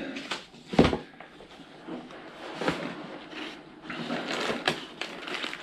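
Biscuit packets and a paper sheet being handled: rustling of packaging and paper with scattered clicks, and a sharp thump about a second in as something is set down.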